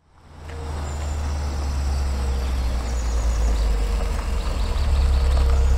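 A low, steady, engine-like rumble fades in over the first half-second, with short high chirps like birds above it from about halfway through.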